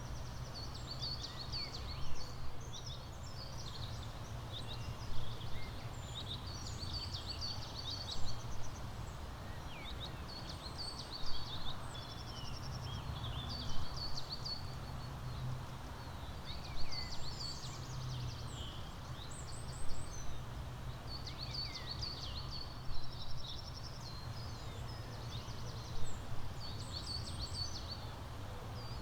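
Songbirds chirping and trilling, with a louder song phrase about every three seconds, over a steady low rumble.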